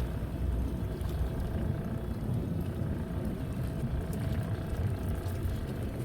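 Fishing boat's engine running steadily: a continuous low rumble with a faint hum above it.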